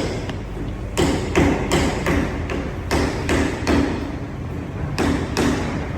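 A series of sharp knocks with a short ring after each, mostly in quick groups of two or three about a third of a second apart, repeating roughly every two seconds over a steady low hum.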